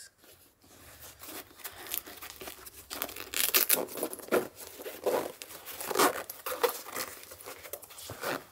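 A zippered fabric sierra-cup case from Asimocrafts being unzipped and opened by hand: irregular scratchy rasps and crinkling, louder from about three seconds in.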